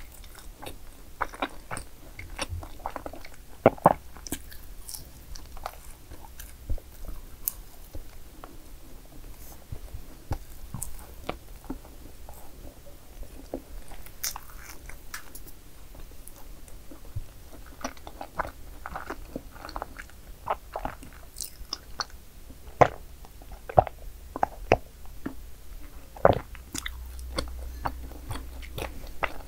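Close-miked eating of madeleines: biting and chewing with irregular crunches and wet clicks of the mouth, a few sharper crunches standing out.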